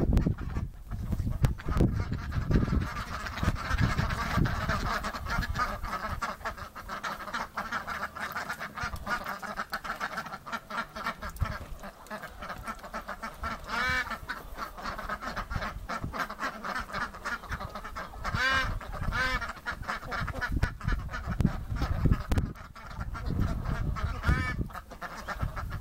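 A flock of domestic ducks quacking and chattering continuously, many calls overlapping, with a few louder single calls standing out about halfway through and again later.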